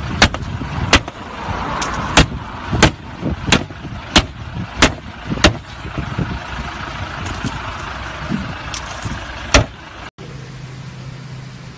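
A row of sharp knocks, about one every two-thirds of a second for five seconds and then one more near the ten-second mark, over the low rumble of a vehicle engine running. Near the end it changes abruptly to a steady low hum with hiss.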